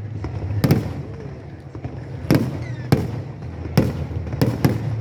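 Festival fireworks shells bursting: about six sharp bangs at uneven intervals, coming closer together near the end, over a steady low rumble.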